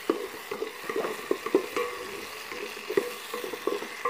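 Wooden spoon stirring and scraping an onion-tomato masala frying in ghee in a metal pot: a steady sizzle broken by frequent, irregular knocks of the spoon against the pot.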